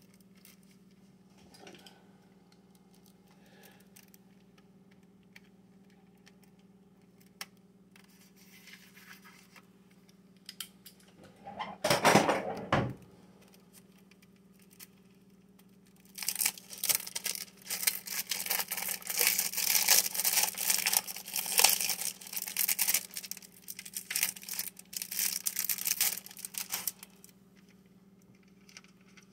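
Thin plastic wrapping on a CD case being torn off and crinkled: a short, louder rustle about halfway through, then about ten seconds of dense crinkling and crackling that stops shortly before the end.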